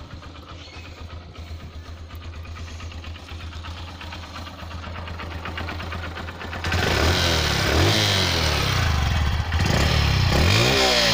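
Honda Livo's 110cc single-cylinder four-stroke engine idling steadily, then revved in several short throttle blips, rising and falling in pitch, during the second half, louder from then on.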